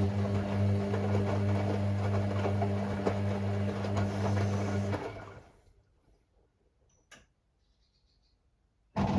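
Hoover washing machine's drain pump humming steadily as it pumps out water with a gurgling rush. It stops about five seconds in, a single click follows, and the pump cuts back in abruptly near the end.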